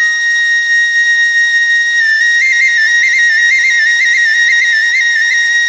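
Background music: a solo flute holds one high note, plays a run of quick trills from about two seconds in, then settles back onto the held note.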